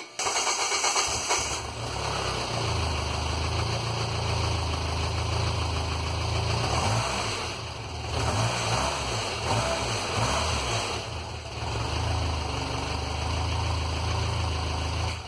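Engine on a test stand, running on its freshly repaired ECU: it comes in abruptly right at the start and settles into a steady, low idle that wavers a couple of times.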